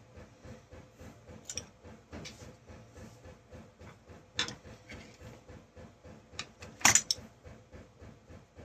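Small metal parts and hand tools clinking and clicking as the chainsaw is taken apart: scattered sharp clinks, with a quick cluster of louder ones about seven seconds in.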